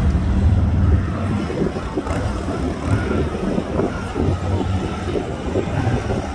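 Harley-Davidson Road Glide police motorcycle's V-twin engine running at low revs as the bike is ridden slowly through tight cone turns.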